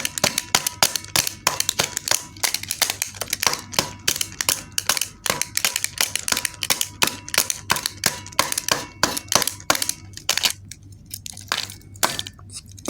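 Rapid sharp plastic clicks and knocks, several a second, from a handheld remote control being pressed and banged over and over because it will not work. The clicks thin out near the end.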